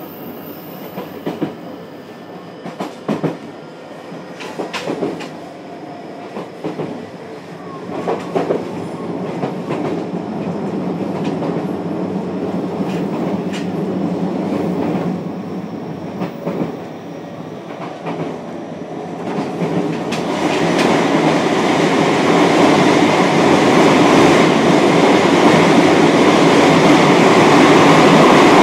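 Running sound heard from inside a JR Kyushu 303 series electric train car: the wheels click over rail joints in pairs every second or two. From about twenty seconds in, a louder steady rushing noise rises and holds.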